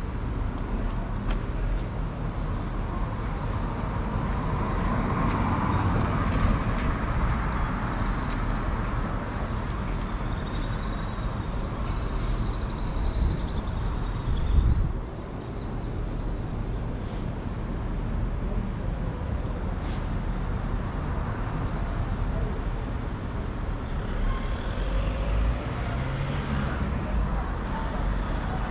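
Steady rumble of road traffic, with a brief louder bump about halfway through.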